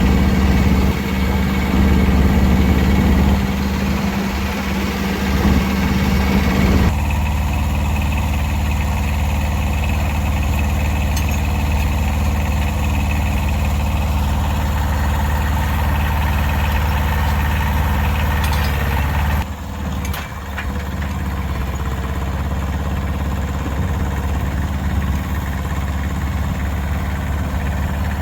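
A vehicle engine running steadily at a low, even speed. Its tone shifts suddenly about seven seconds in and again about twenty seconds in.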